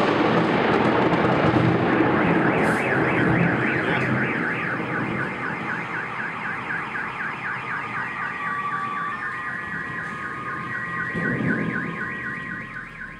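Car alarms wailing with a fast rising-and-falling siren, set off by the bang of a close lightning strike, over a fading rumble of thunder. About eight seconds in, a second alarm with steady held tones joins the first.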